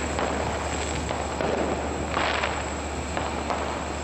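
Fireworks going off, with a brief hissing burst about two seconds in and faint crackles over a steady low hum.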